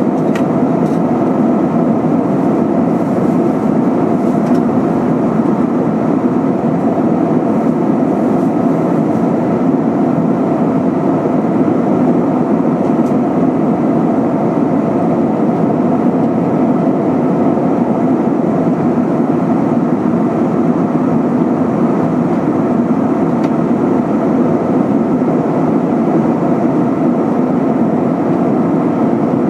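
Steady cabin noise of an Airbus A320-232 in flight: a constant rush of air along the fuselage and the drone of its IAE V2500 turbofan engines.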